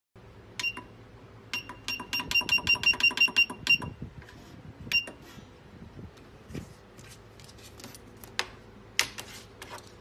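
Electronic beeps from a USB cable testing machine: one beep, then a quick run of about a dozen short beeps at the same pitch, then one more beep. Scattered sharp clicks follow.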